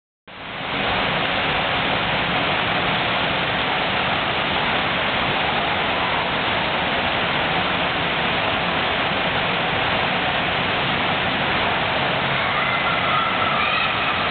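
Indoor swimming pool: a steady wash of splashing water from swimmers' strokes.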